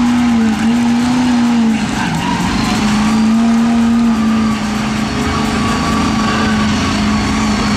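Mud truck engine running hard at high revs, its pitch dipping and climbing back several times as the throttle is worked, then holding a little lower near the end.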